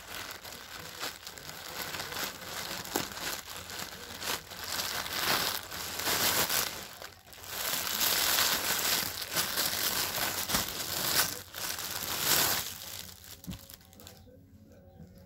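Plastic packaging crinkling and rustling as it is handled by hand: a courier polybag and a clear plastic packet around a sweater. The rustling comes in uneven bouts, with a short lull about halfway, and dies down near the end.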